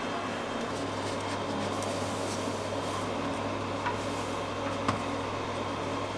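Steady low machine hum, like air conditioning or refrigeration running, with a couple of light taps about four and five seconds in.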